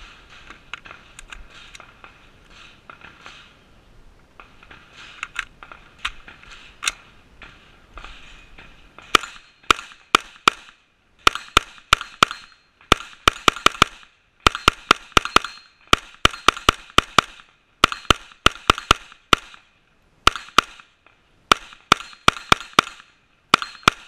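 AR-style rifle firing rapid strings of shots, two to six cracks at a time with short pauses between strings. For the first nine seconds or so there are only faint knocks before the shooting starts.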